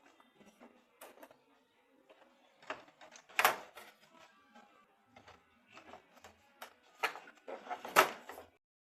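Irregular sharp knocks and clicks of hard objects being handled and set down, about seven in all, the loudest a third of the way in and near the end.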